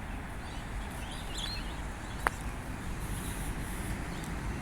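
Steady outdoor background noise with a few faint bird chirps about a second in, and a single sharp click a little past two seconds.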